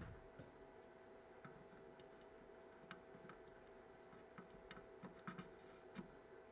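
Near silence: scattered, irregular faint ticks as a soldering iron melts solder at a capacitor lead on a circuit board, over a faint steady tone.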